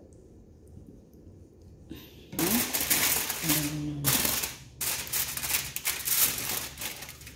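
Aluminium foil crinkling and crackling as it is handled and folded around a whole fish, starting about two and a half seconds in.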